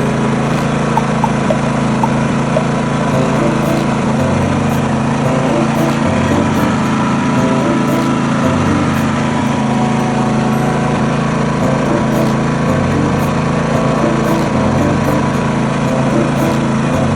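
Small engine of a portable generator running at a steady speed.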